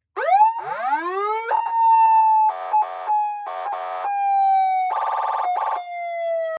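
Aftermarket electronic police siren for a car, federal style: the pitch sweeps up quickly, then holds a long tone that slides slowly down. Three pairs of short, harsh buzzing bursts are layered over it, and it cuts off abruptly at the end.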